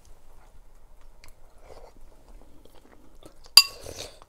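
Faint chewing of a mouthful of soup, then a spoon strikes the soup bowl once with a sharp ringing clink about three and a half seconds in.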